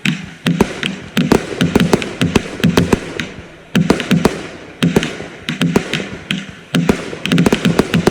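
Consumer firework cakes firing: a rapid, irregular volley of sharp bangs and cracks, several shots a second with the reports overlapping.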